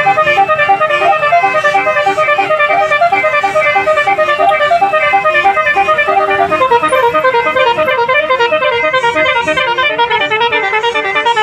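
Telolet basuri 12-note bus horn playing a fast melody, a quick run of short notes several a second. The tune changes to a new phrase about two-thirds of the way through.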